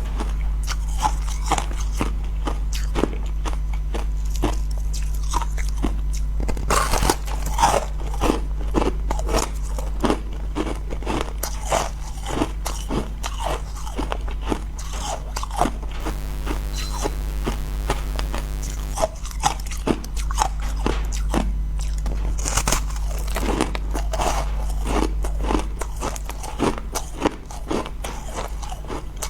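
Close-miked biting and chewing of crunchy frozen ice and freezer frost, a dense run of crackling crunches, easing off briefly about halfway through before the crunching picks up again.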